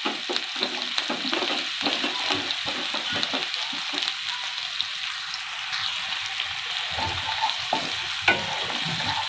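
Finely chopped raw onion sizzling in hot oil with cumin seeds in a non-stick kadai, a steady hiss with constant crackling. A spatula starts stirring and scraping the onion through the pan near the end.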